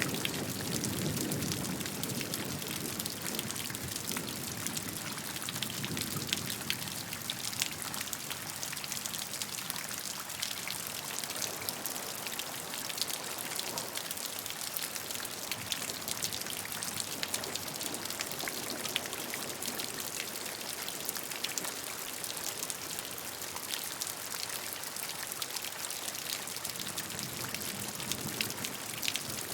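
Steady rainfall: an even hiss of rain with many close, fine drops pattering on a surface.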